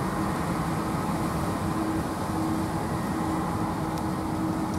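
Jet airliner on final approach to land, heard as a steady low rumble with a faint held hum.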